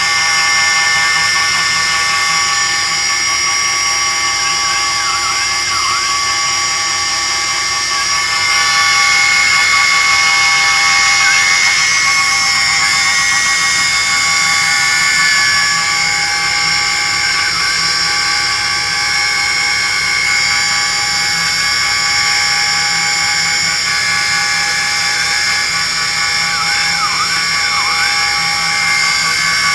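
Hobby King Nova quadcopter's brushless motors and propellers running, a steady whine of several high tones with a few brief dips in pitch.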